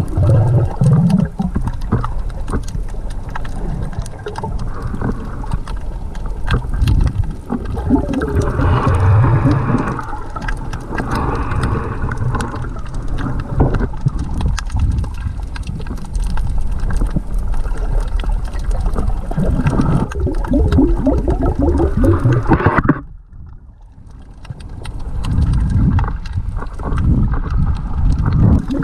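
Muffled underwater water noise picked up by a camera in its housing: irregular low rumbling and gurgling with scattered small clicks. It dips sharply for about a second near the end, then builds back.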